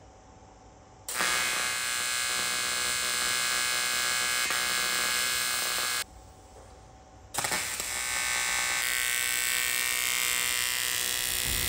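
Welding arc buzzing steadily as an aluminium intercooler is stitch welded: one run of about five seconds, a short pause, then a second run.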